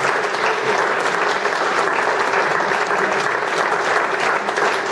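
Audience applauding: many hands clapping together at an even level.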